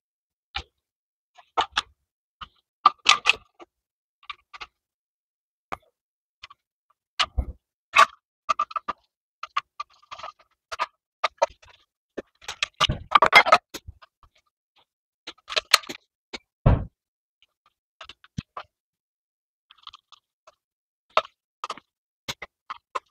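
Plastic window switch tray and power window switches being handled on a Subaru Forester door: scattered irregular clicks, taps and light rattles, with a denser clatter a little past the middle and a dull knock soon after.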